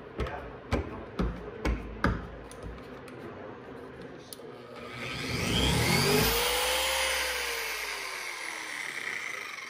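Dual-action orbital polisher with a foam pad. First comes a run of soft knocks, about two a second. About five seconds in the motor runs up with a rising whine and a rushing pad noise against the paint, then winds down, its pitch falling away.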